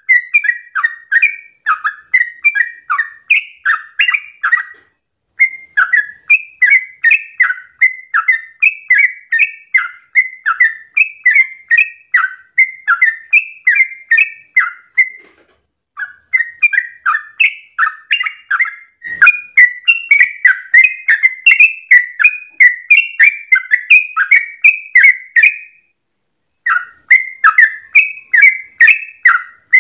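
Yellow-vented bulbul (trucukan) singing a fast, continuous run of short chirping notes, several a second, in the rapid 'ropel' style. It breaks off briefly about five, fifteen and twenty-six seconds in.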